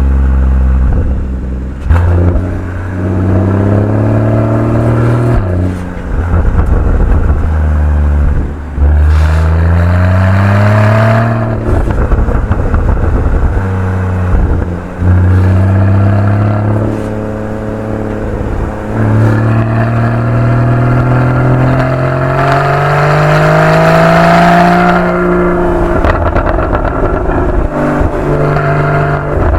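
Porsche 981 Boxster GTS flat-six engine through its factory sports exhaust, revving up again and again through the gears under acceleration. Each climb in pitch breaks off suddenly at a shift or lift-off, with short pops and crackles from the exhaust.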